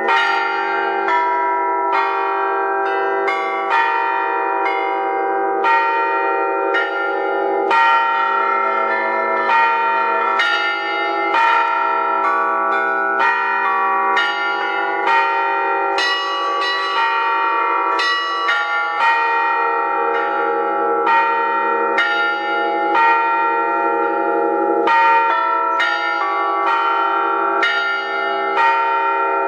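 Russian artistic bell peal played on thin-walled bells together with thick struck metal bila. A steady stream of strikes, roughly one to two a second, rings over a sustained, overlapping hum of bell tones.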